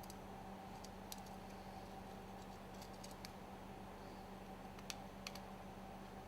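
Faint, irregular light clicks and ticks of small tools and parts being handled while wires are disconnected from the lubricator's terminal box, over a steady low hum.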